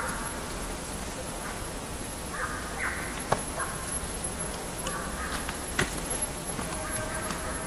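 A few short, harsh animal calls in the open air, with two sharp clicks between them.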